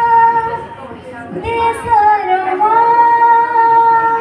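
A girl singing a patriotic Odia song solo into a microphone, one voice with no accompaniment, in long drawn-out notes. A held note fades out before a second in, then she sings "deshara" with a short wavering turn and holds the last note long.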